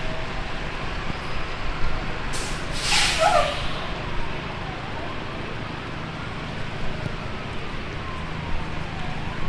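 Steady city street noise of heavy rain and traffic. About two and a half seconds in, a loud hiss of air with a short falling squeal, like a bus or truck air brake releasing. A faint siren wail slowly rises and falls behind it.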